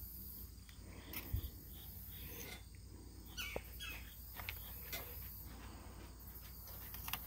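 Faint, steady outdoor chorus of insects chirring, with a few soft clicks and a light thump about a second in from handling a small aluminium weighing pan and a foil bag as a gold nugget is tipped in.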